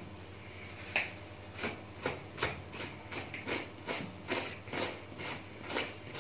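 Hide of a freshly slaughtered sheep being worked off the carcass by hand: a run of short rustling, tearing strokes, about two or three a second, with a sharper knock about a second in.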